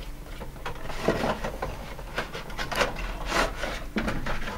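Cardboard retail box being opened and a clear plastic clamshell slid out of it: irregular rubbing and scraping of plastic against cardboard, with several louder scrapes.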